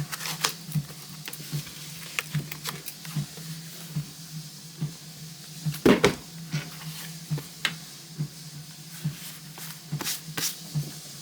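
Handling of a leather planner cover with a notebook inside: light clicks, taps and rustles of leather and paper, with one louder thump about six seconds in, over a faint steady low hum.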